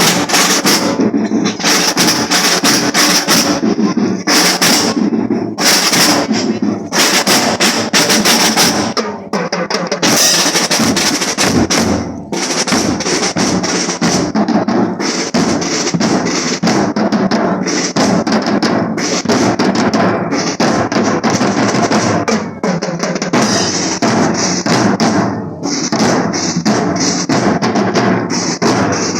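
School marching drum band playing continuously, snare drums and bass drums beating out a steady marching rhythm with snare rolls.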